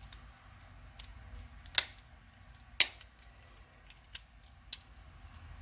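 Sharp clicks and snaps from a Hot Wheels die-cast Jeep Wrangler as its body and chassis are worked apart after the rivet heads have been drilled off. There are about five separate clicks, the two loudest about two and three seconds in.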